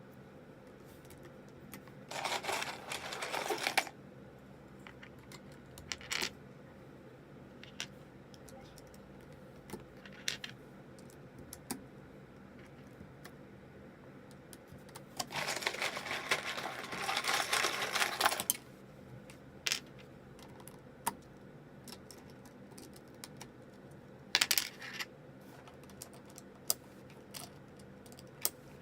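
Plastic keycaps clicking and clattering while being pulled off and fitted onto a mechanical keyboard. Scattered single clicks are broken by longer bursts of dense clatter, about two seconds in, for about three seconds from fifteen seconds in, and briefly near twenty-five seconds.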